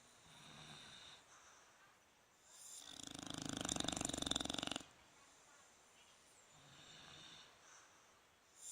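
Sleeping bulldog snoring: one loud, rasping snore lasting about two seconds, starting a third of the way in, between softer breaths, with the next loud snore starting right at the end.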